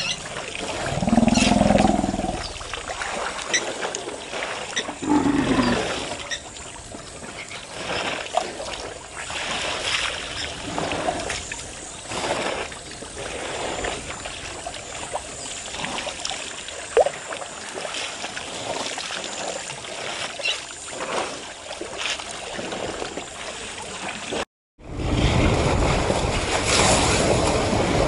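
African elephants drinking and wading at a waterhole: water sloshing and splashing, with scattered small splashes and clicks and a couple of short low swells. About three seconds before the end the sound drops out for a moment, then a steady rushing of wind on the microphone covers everything.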